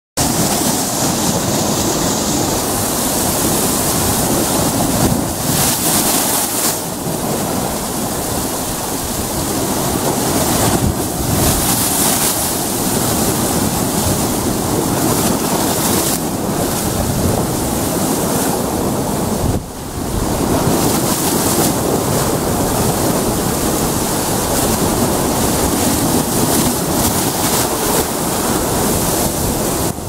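Sea waves breaking and surging against a rocky shore: a loud, continuous wash of surf and spray that swells and eases as each wave hits the rocks.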